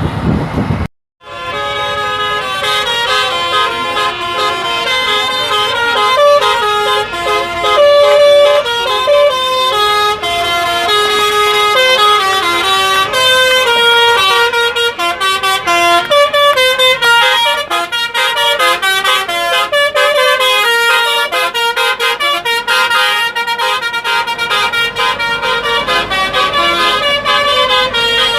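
Bus 'telolet' Basuri musical horn playing a long, loud run of melodies, its notes stepping quickly up and down, after a brief cut-out about a second in.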